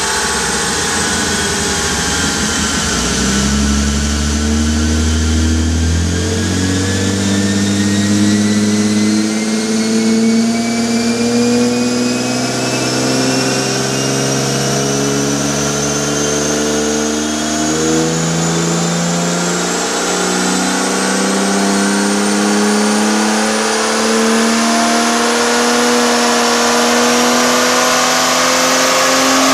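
BMW E36 M3 straight-six with a GHP exhaust under full load on a chassis dyno, its note climbing slowly and steadily as the revs rise through a long pull, with a thin whine rising in pitch alongside.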